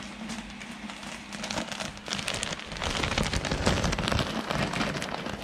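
Loose coco fiber substrate pouring from a bag into a glass tank, a dense grainy rustle that builds up and is loudest in the middle.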